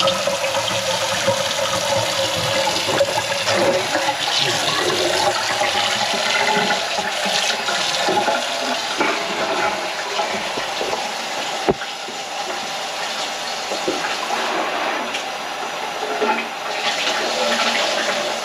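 Greasy water draining steadily out of a stainless steel kitchen sink in a whirlpool, now that the grease clog has been cleared. One sharp knock about two-thirds of the way through.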